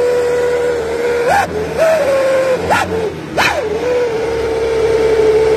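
A light truck's modified 'wolf' howling exhaust, a whistling tip made from a Donaldson filter canister, giving a loud steady howl-like whistle. The pitch jumps up in short yelps and falls back four times in the first few seconds.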